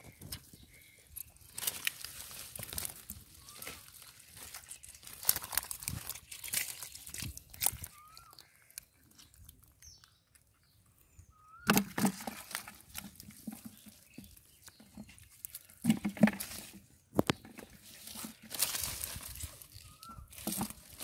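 Irregular rustling, crackling and crumpling of wet water hyacinth and a fishing net being handled and shaken out, in clusters with a brief quiet spell around the middle.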